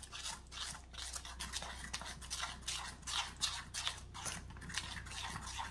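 Metal spoon stirring a thick apricot glaze in a small stainless steel bowl, with repeated quiet scrapes of the spoon against the bowl.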